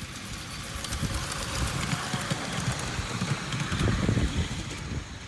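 Miniature steam locomotive hauling a passenger train passing close by, with rhythmic exhaust beats and the clatter of wheels on the rails. It grows louder to a peak about four seconds in, then drops away quickly as it goes past.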